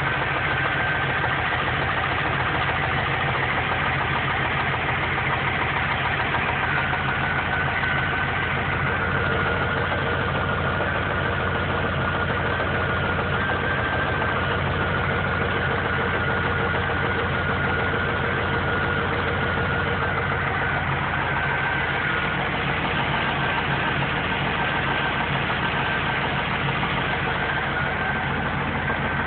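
Car engine idling steadily with a rapid, regular knock. The mechanic takes it for rod knock, while the owner suspects the lifters in the heads; the engine had been run low on oil.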